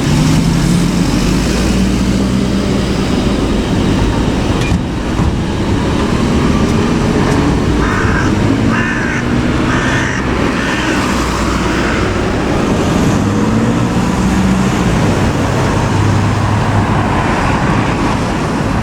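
Large road vehicle's engine running steadily amid traffic noise, a low drone with no siren.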